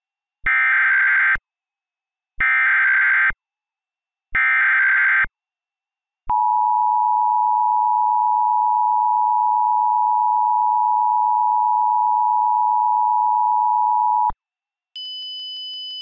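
Emergency Alert System SAME header: three one-second bursts of digital data warble with short gaps between them. Then the EAS two-tone attention signal sounds steadily for about eight seconds and cuts off. Near the end a quieter, higher steady tone begins.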